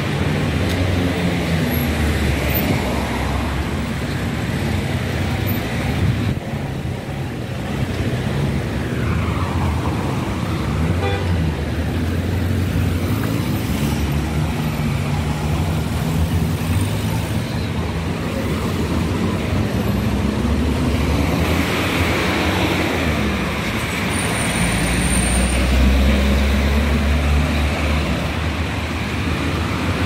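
City street traffic: cars and motor scooters driving past, their engines rising and falling as each goes by, over a steady hum. A heavier vehicle passing makes the loudest, deepest rumble a little after the middle.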